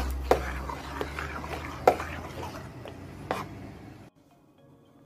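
Metal spoon stirring thick milk pudding in a metal pot: wet scraping, with a few sharp clinks against the pot's side, the loudest about two seconds in. The sound cuts off suddenly about four seconds in.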